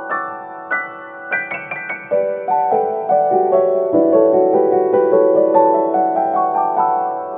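Background piano music: a gentle melody with a quick run of notes about a second and a half in, then slower, overlapping notes that step downward in pitch.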